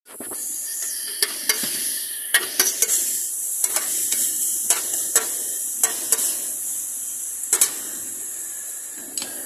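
Shredded cabbage and beef sizzling in a wide, shallow metal pan while a metal spatula stirs them. A steady sizzle runs throughout, broken by a dozen or so sharp clinks and scrapes of the spatula against the pan at irregular intervals.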